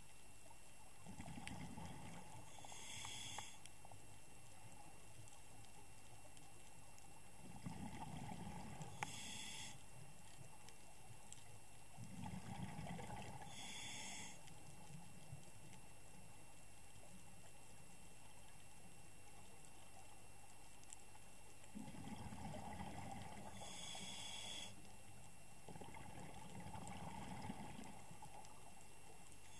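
Scuba diver breathing through a regulator underwater: a bubbling rumble of exhaled air, then a short high hiss of inhalation, about five slow breaths with long pauses between.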